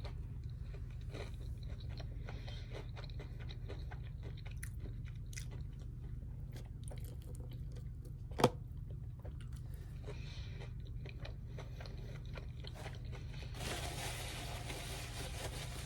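Close-miked chewing and crunching of fast food, with wet mouth clicks throughout and one sharp loud click about halfway through. A rustling hiss comes in near the end, over a steady low hum.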